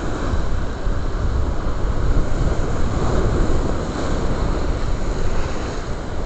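Steady low rumble of wind buffeting the microphone, with sea surf washing below it.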